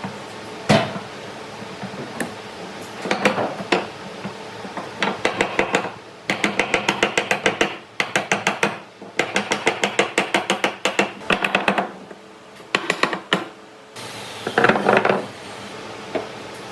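Runs of quick, light strikes, about six a second, in bursts of a second or two with short pauses between: rapid tapping or hammering with a hand tool.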